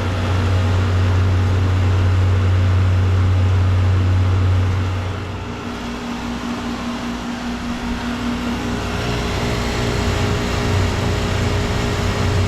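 Vintage Magic Chef "Johnson series" central air conditioner condenser running: a steady, loud low compressor hum with the condenser fan. The hum drops noticeably in level about five seconds in, leaving a steadier tone over the fan noise.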